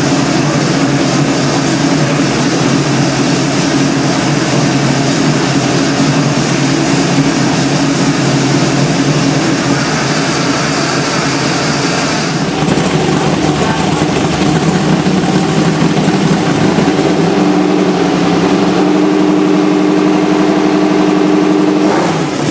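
Trophy truck's GM LS-series V8 running steadily on its first start-up. About two-thirds of the way through, the engine speed steps up and then holds near 3,000 rpm.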